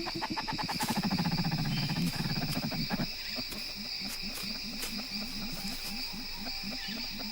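Trumpeter birds giving their deep, low call: a fast rolling run of low notes for about three seconds, then a steady series of short low hoots, about three a second. A steady drone of rainforest insects runs behind it.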